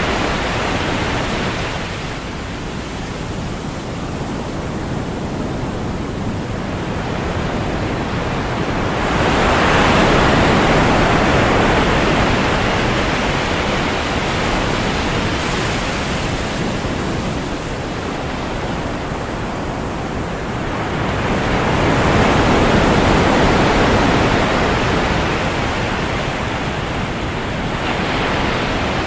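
Ocean surf breaking on a sandy beach: a steady rush of water that swells as waves break, about ten seconds in, again a little past twenty seconds, and near the end.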